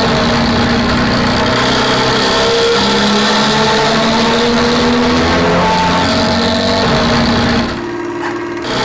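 Loud vehicle exhaust running with a harsh, rough snoring growl (ngorok). It dips briefly quieter near the end, then comes back.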